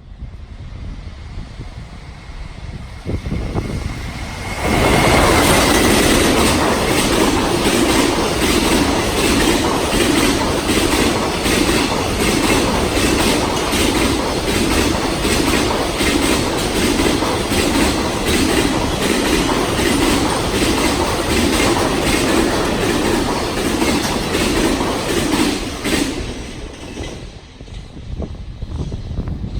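Long freight train passing close by, its wheels clattering over the rail joints in a quick steady rhythm. The sound builds over the first few seconds, runs loud for about twenty seconds and then falls away near the end.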